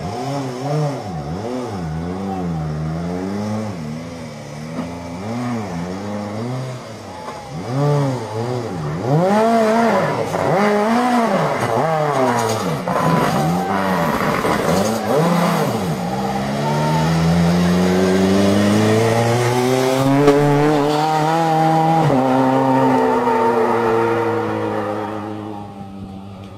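Rally car engine at full effort, its pitch dropping and climbing again and again through gear changes and lifts. It then rises in one long pull, holds at high revs and fades near the end.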